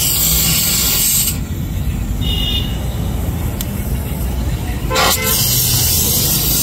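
A loud steady rushing noise with vehicle horns tooting over it: a short high toot about two seconds in and a stronger honk about five seconds in.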